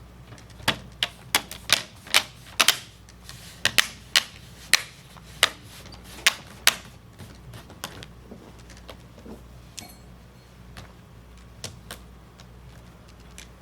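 Plastic screen bezel of a Dell 3120 laptop being pressed back onto the lid, its clips snapping into place in a run of sharp clicks. The clicks come quickly through the first half and more sparsely after.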